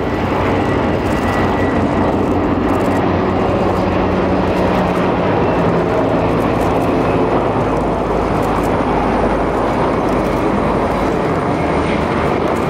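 Military helicopters (Z-20, Z-8L and Z-10) flying past in formation: a loud, steady turbine and rotor noise with a low hum underneath.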